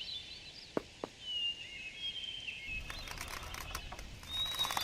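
Outdoor ambience with birds chirping and whistling, and two sharp clicks about a second in.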